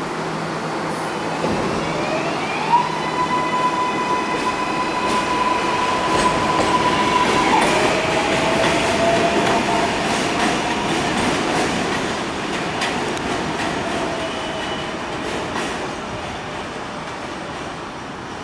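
R142A subway train pulling out of an elevated station. Its electric motors whine, rising in pitch as it accelerates, then holding and dropping to a lower tone that climbs again, over wheel rumble and clacking on the rails. The sound fades as the train moves away.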